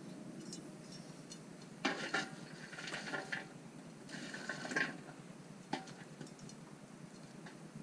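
Metal fire tool raking lumpwood charcoal around a steel fire bowl: clinking and scraping in two bursts, about two and four and a half seconds in, then a single knock a little later.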